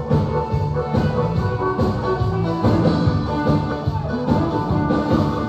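Live band playing with a drum kit keeping the beat under held instrument notes, loud and without a break.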